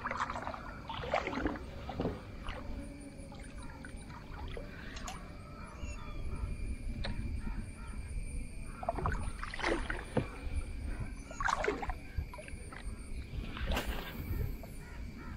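Wooden canoe paddle dipping and pulling through water, with a splash and trickle every couple of seconds as the boat is paddled along.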